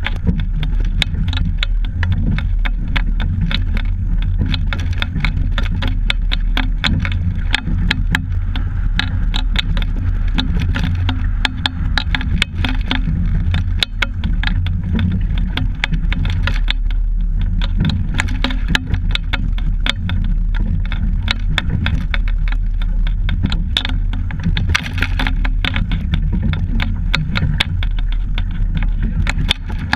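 A rowing double scull under way, heard from a camera fixed to the hull: a steady low rumble with rapid, continuous clicking and rattling.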